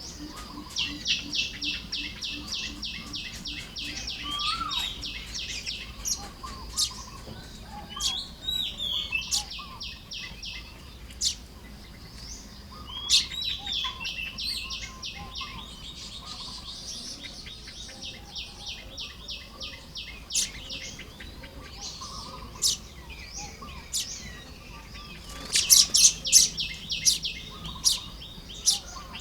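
Baya weavers calling at their nest colony while nest-building: fast runs of rapidly repeated high chattering notes, some lasting several seconds, with short whistled glides in between. The loudest, densest run comes near the end.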